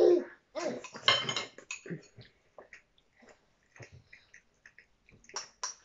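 Metal spoons and forks clinking and scraping against bowls as people eat. There is a cluster of clatter about a second in, then scattered small clicks and a few more near the end.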